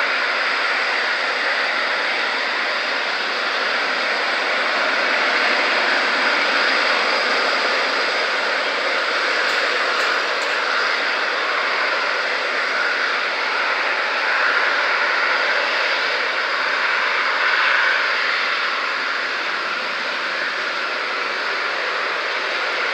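Boeing 777-300ER's twin GE90-115B turbofan engines at takeoff thrust as the jet accelerates down the runway: a loud, steady rushing jet noise with no distinct pitch.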